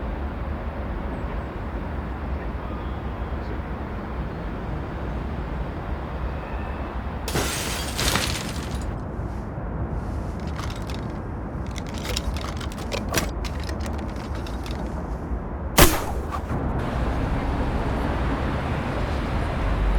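Redesigned film sound effects: a steady low city rumble, then a loud crash of glass breaking about seven seconds in, followed by scattered sharp clicks and knocks and a single sharp bang near sixteen seconds.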